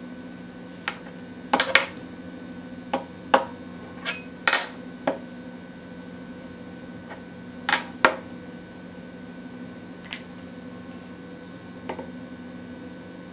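About ten irregular light metal clinks and knocks, some in quick pairs, as an aluminium machinist's square and a metal flashlight are set down and shifted on an aluminium build plate. A faint steady hum runs underneath.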